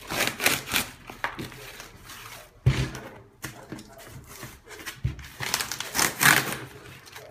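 Brown packing tape being torn off a cardboard shipping box in rough ripping strips, the loudest tear a little after the middle, with a couple of dull thumps as the box is handled.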